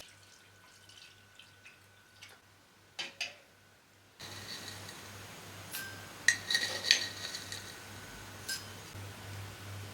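Kitchen dishes and utensils clinking and being handled, with a few sharp clinks. The background noise steps up about four seconds in.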